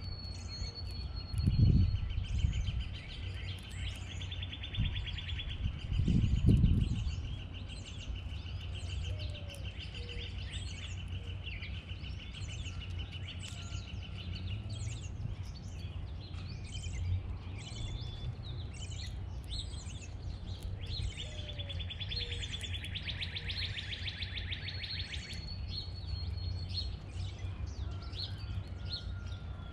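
Backyard songbirds chirping and singing: many short high chirps, a long, fast trill lasting over ten seconds in the first half, and a shorter trill later. A steady low rumble lies underneath, with two brief louder low bursts about two and six seconds in.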